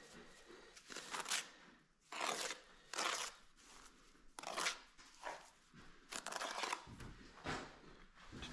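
A masonry trowel scraping and scooping wet, gritty mortar off a mortar board: about six short scrapes, a second or so apart.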